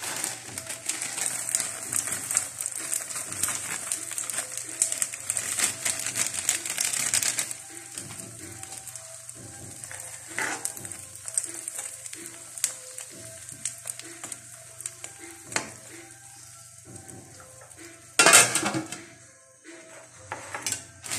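Pork cracklings poured into a pan of simmering mung bean stew, with a dense crackling hiss for about the first seven seconds. Then a spoon stirs and scrapes the metal pan with scattered clinks, and there is one louder clatter near the end.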